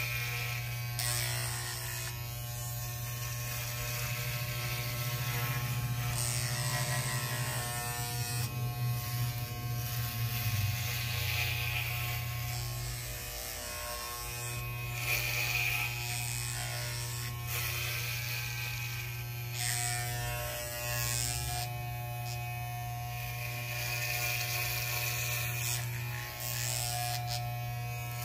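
Corded electric hair clippers with a half-inch number 4 guard buzzing steadily while cutting through short, tightly curled hair. A rasping hiss comes and goes over the buzz as the blades pass through the hair.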